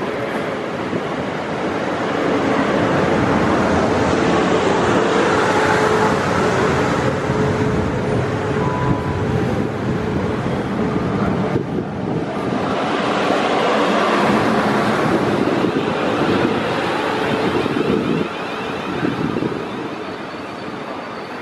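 A train running through the station: a long, loud rush of wheel and air noise. It swells twice, dips briefly about halfway, and drops away near the end.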